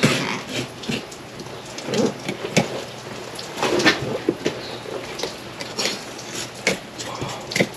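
Fillet knife working along a Pacific halibut's backbone, scraping and ticking over the rib bones as it cuts, in irregular clicks and scrapes with wet handling of the flesh.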